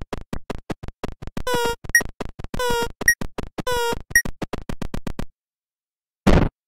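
8-bit, video-game style synthesized sounds: a fast run of short blips, three longer buzzy tones each followed by a short high beep, then a pause and harsh noise bursts near the end.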